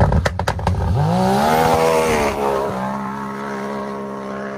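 Can-Am Maverick X3 side-by-side accelerating hard away on a gravel road, its turbocharged three-cylinder engine running strong. A few sharp cracks at the start, then the engine note rises through a gear, drops at a shift a little over two seconds in, and settles into a steadier note that fades as the machine pulls away.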